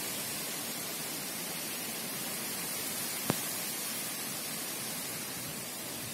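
Steady, even hiss, strongest in the upper range, with a single sharp click about three seconds in.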